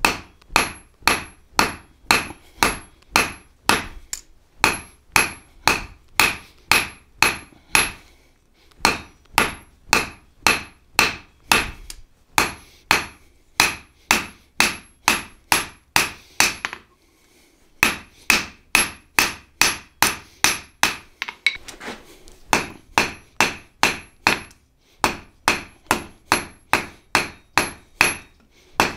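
Blacksmith's hand hammer striking a hot iron bar on the anvil, drawing out and spreading the end of a skillet handle. It is a steady rhythm of about two to three blows a second, each with a bright metallic ring. The blows come in runs broken by brief pauses where the bar is turned or repositioned.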